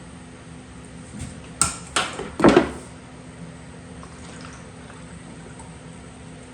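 Paint containers and a mixing cup being handled and set down during clear-coat mixing: three sharp knocks and clatters about one and a half to two and a half seconds in, the last the loudest.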